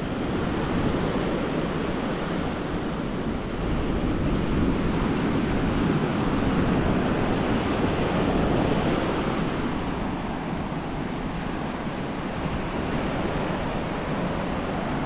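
Indian Ocean surf breaking and washing up a sandy beach on an incoming tide: a continuous rushing that swells in the middle and eases a little toward the end.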